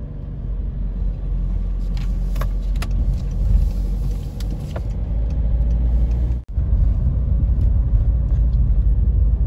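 Car driving on town streets, heard from inside the cabin: a steady low engine and road rumble. The sound cuts out for an instant about six and a half seconds in.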